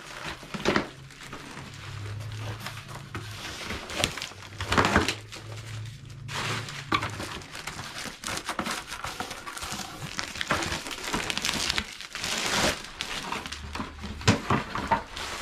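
Handling noise: crinkling and rustling with scattered sharp clicks and knocks, as plastic toilet parts are moved about.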